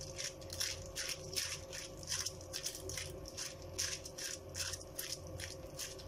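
Oily fingers pressing and spreading poli dough flat on a plastic sheet: soft, rhythmic pats and crinkles of the plastic, about four a second, over a faint steady hum.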